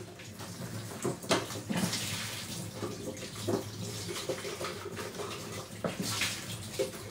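Kitchen tap running into a stainless-steel sink while dishes and a plastic container are rinsed by hand, with a few sharp knocks of dishware against the sink.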